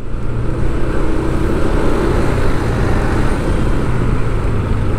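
Steady road traffic noise: vehicle engines running and tyres on the road.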